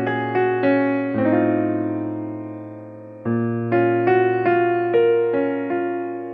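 Background music on an electric piano: notes struck one after another over low held chords, with one chord left to ring and fade for about two seconds in the middle.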